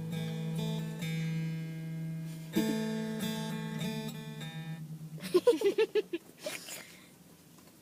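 Acoustic guitar strummed, its chords left ringing and fading out about five seconds in. A quick run of high, wavering cries follows for about a second and a half.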